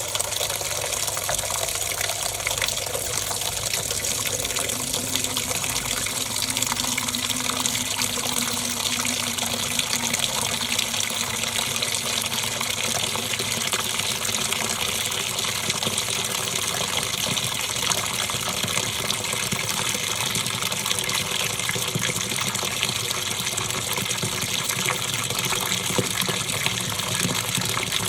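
Top-loading washing machine mid-cycle: a steady rush of water swishing and churning in the tub.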